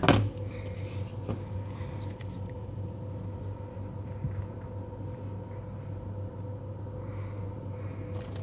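Burger patty frying in oil in a pan, with a faint sizzle and a few small pops over a steady low hum. A sharp knock right at the start is the loudest sound.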